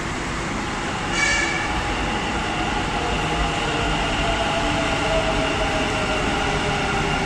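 Namma Metro Green Line electric train arriving at the platform: a steady rolling rumble under the whine of its traction motors, growing slightly louder as it draws alongside. A brief high-pitched sound comes about a second in.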